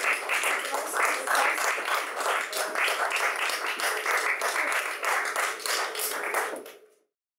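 Audience applauding, many hands clapping at once, fading out quickly near the end.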